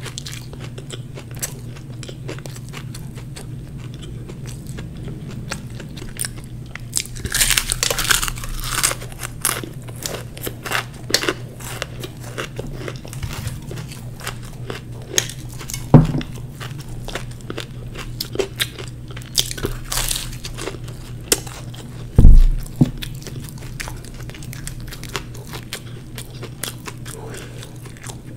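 Close-miked biting and chewing of a fried samosa, with many short crisp clicks and crackles from the pastry, thickest a few seconds in and again later. Two low thumps stand out, a little past halfway and about three-quarters through.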